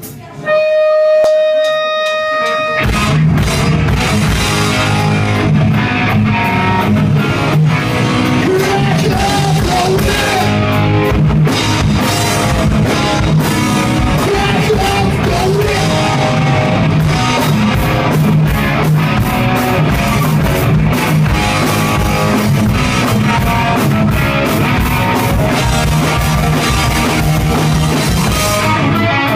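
Live rock band playing: a single held note rings for about two seconds, then drums, bass and electric guitars come in together with a singer and keep a steady beat.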